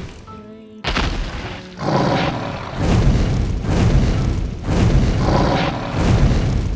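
A series of heavy booms with rumbling crashes, a cartoon sound effect: the first hits about a second in and more follow, keeping the rumble going. A few musical notes sound just before the first boom.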